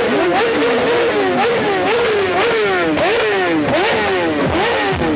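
Sportbike engine revved in repeated quick throttle blips: the pitch jumps up and falls back about every second or less.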